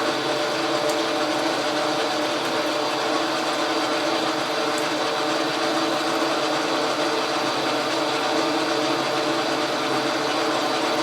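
Logan metal lathe running steadily, taking a cut with the tool bit. It carries a slight vibration through the lead screw, which the machinist puts down to the lead screw turning in a plain cast-iron hole with no bushing.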